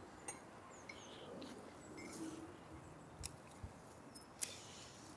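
Quiet outdoor ambience with faint, short bird chirps and a few sharp clicks, the loudest about three and four and a half seconds in.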